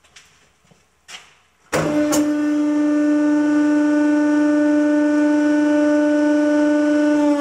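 Hydraulic press pump cutting in about two seconds in with a sudden loud, steady hum that holds level, driving the ram down to crush a small round steel tube further.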